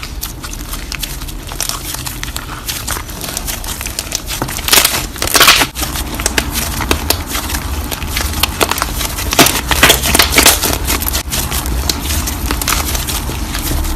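Slime being squished, a continuous run of small sticky clicks and crackles, louder in two stretches about five and ten seconds in, over a low steady hum.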